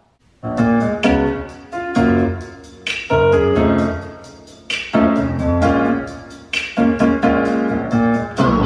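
Piano-led music played back through a JBL EON One PA speaker as a sound test. Chords are struck about once a second and ring out and fade, starting about half a second in.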